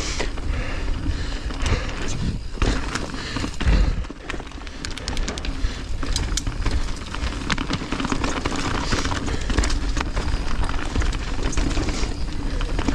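Mountain bike riding fast down a dirt singletrack, heard from a helmet-mounted camera: steady rumble of tyres and wind noise with a clatter of clicks and knocks from the bike over roots and bumps, and a heavier thump about three and a half seconds in.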